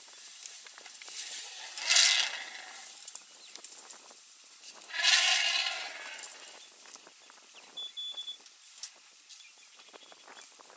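Two short, loud, breathy blasts from elephants around a newborn calf: one about two seconds in and a longer one about five seconds in. Soft rustling and ticking in the grass between them.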